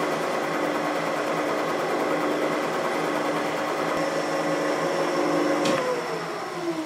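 Homemade tangential-insert face mill taking a 0.2 mm facing cut in steel on a milling machine: a steady spindle-and-cut hum with very little cutter noise. Almost six seconds in there is a click, and the spindle's pitch falls as it winds down.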